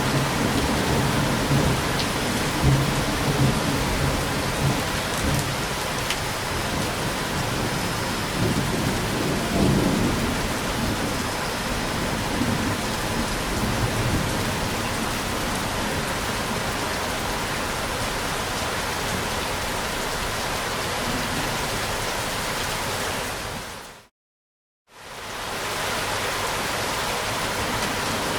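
Steady heavy rain with low rolling thunder rumbles, strongest in the first half. Near the end the sound fades out to complete silence for about a second, then fades back in.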